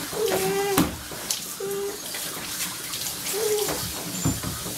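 Water running and splashing in a dog-bathing tub, with a few short, bending whine-like tones over it and a couple of sharp clicks.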